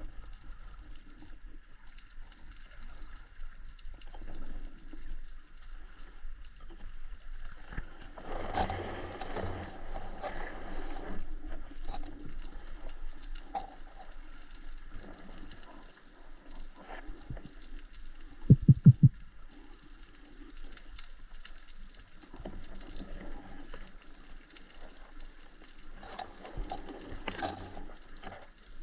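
Underwater ambience heard through an action camera's housing: a faint steady hiss with scattered clicks and crackles, and two swells of rushing water noise. A little past halfway comes a quick run of four loud, low knocks.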